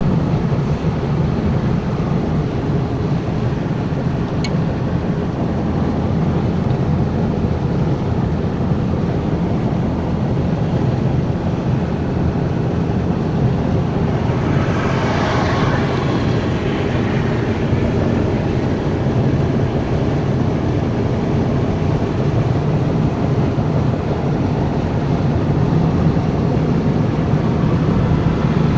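Steady road and engine noise of a moving vehicle heard from inside, with a brief swell of hiss about halfway through.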